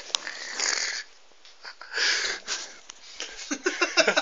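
Breathy, wheezing gasps of stifled laughter that break into rapid, rhythmic laughing near the end.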